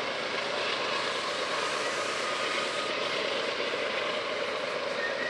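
GE ES44AC diesel-electric locomotive leading a heavy grain train up a grade: a steady drone of the engine working under load, mixed with the rumble of the train.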